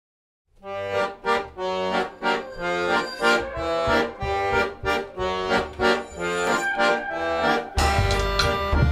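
Lively accordion music with a pulsing rhythm, starting about half a second in; near the end it turns fuller and louder, with a deeper bass.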